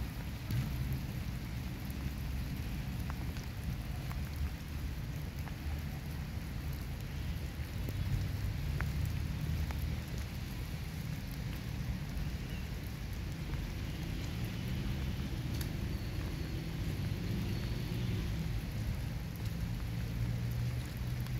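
Steady rain falling on wet paving and grass, over a continuous low rumble.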